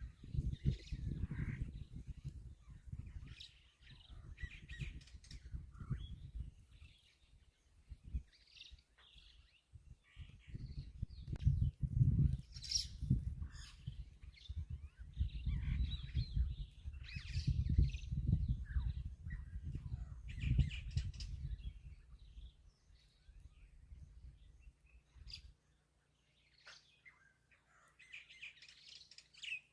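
Many birds chirping and calling in short, scattered phrases over an uneven low rumble, which stops near the end while the chirps go on.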